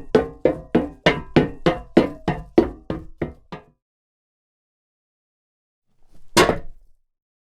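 Boot footsteps on a hard surface, running at about three steps a second and getting fainter just after three seconds in. After a pause, one heavier step or landing comes about six seconds in.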